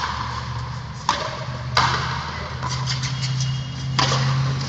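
Frontenis ball being struck with rackets and smacking off the frontón wall: three sharp cracks about a second in, just before two seconds and about four seconds in, each echoing in the high-walled court, over a steady low hum.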